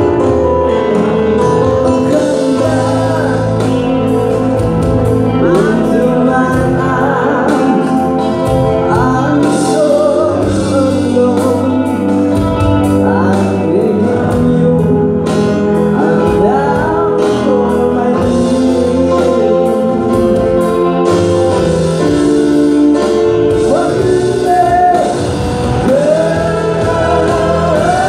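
A man singing a song into a microphone, backed by a live band with electric guitar, all amplified through a PA.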